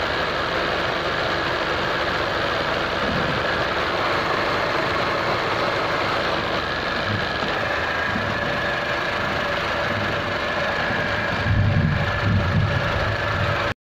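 Honda Civic FD 1.8-litre four-cylinder engine idling steadily with the air-conditioning on, heard from close over the open engine bay, while the radiator and condenser fans are not running on this overheating car. A few low rumbling bumps come near the end before the sound cuts off suddenly.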